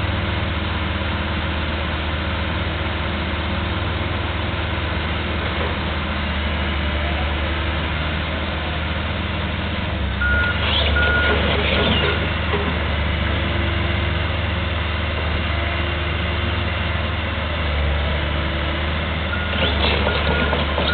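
Diesel engines of a tracked excavator and other road-work machinery running steadily. A backup alarm beeps in two short spells, about halfway through and again near the end, as a machine reverses.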